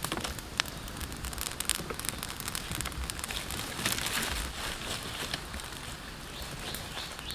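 Open wood fire of burning logs crackling, with many sharp snaps over a steady hiss. A short chirp starts near the end and repeats about three times a second.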